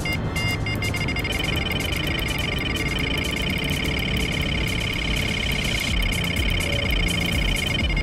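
Electronic carp bite alarm giving a few short bleeps, then a continuous rapid warbling tone from about a second in: a fish taking line on a run.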